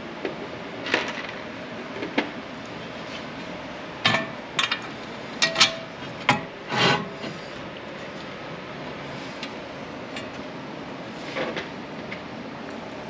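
Metal hardware clinking and knocking as bolts and flat washers are fitted into the holes of a bed rack's metal armor panels and legs. A cluster of louder, sharper knocks comes about four to seven seconds in, one ringing briefly.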